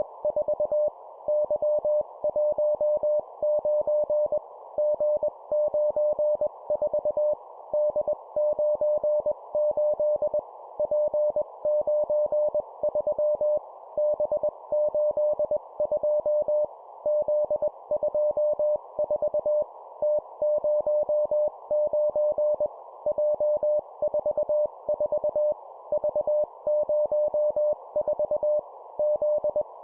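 Morse code at 20 words per minute: a single steady tone keyed on and off in short groups of three characters, a letter and two numbers, with a brief gap between groups. A steady hiss runs under the tone.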